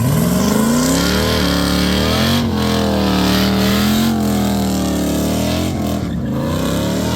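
A car engine revving, its pitch rising and falling in slow sweeps; the sound cuts in suddenly.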